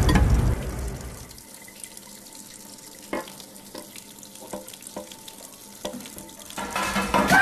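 A low boom fades away over the first second or so. Then a kitchen tap runs quietly into a sink, with a few light knocks.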